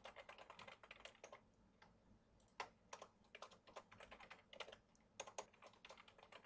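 Faint typing on a computer keyboard. A quick run of keystrokes comes first, then a short pause, then more keystrokes at an uneven pace.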